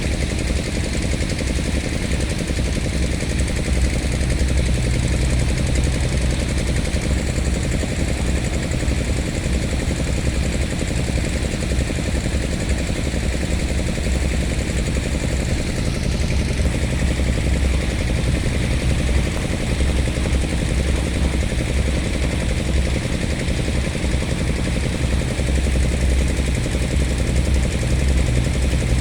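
Volvo 140 crawler excavator's diesel engine running steadily with a low, even rumble.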